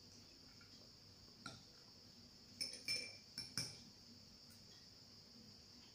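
Cutlery clinking against a ceramic plate as food is cut and picked up with a fork: a single light clink about a second and a half in, then a quick run of four or five clinks around three seconds in.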